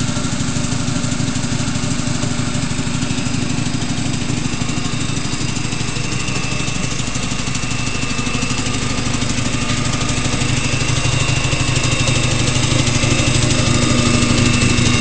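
Quincy QR-25 model 340 reciprocating air compressor pump, driven by a 10 hp motor, running steadily with a fast, even pulsing; it grows slightly louder toward the end.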